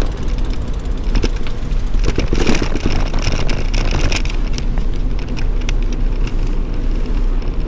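Bicycle rolling over a cobblestone street: a steady rumble with dense rattling and clicking as the wheels ride over the stones, busiest about two to four seconds in.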